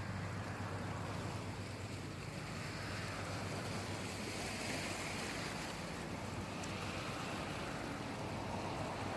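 Gentle sea waves washing in, slowly swelling and ebbing, with wind on the microphone. A steady low hum runs underneath.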